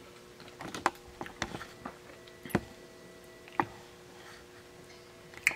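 Scattered light clicks and knocks, about six in all, over a faint steady hum.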